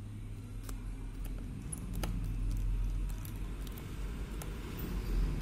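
Small metallic clicks and ticks of a precision screwdriver working the screws of an Oppo A5 phone's metal mid-frame, a few scattered clicks over a few seconds, over a steady low rumble in the background.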